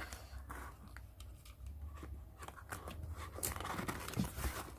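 A blade cutting and scraping at a cardboard parcel's packing, with scattered short crunches and scratches that grow busier near the end.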